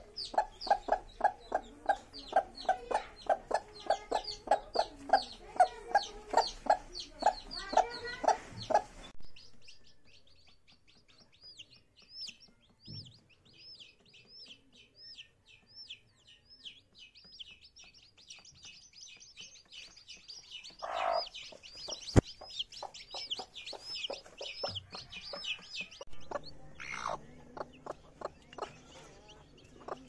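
Broody hen clucking in a quick, steady series, with the high, falling peeps of hatching chicks over it. For much of the middle only the chicks' repeated peeps are heard, about three a second; the hen's clucking comes back near the end.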